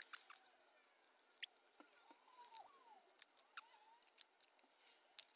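Near silence with faint scattered clicks and a few short chirping glides: the fast-forwarded sound of stove parts being cleaned with a small tool.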